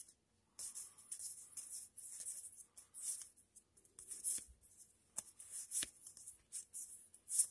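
Magic: The Gathering cards sliding against each other as a freshly opened pack is thumbed through by hand: an irregular series of about ten short, papery swishes.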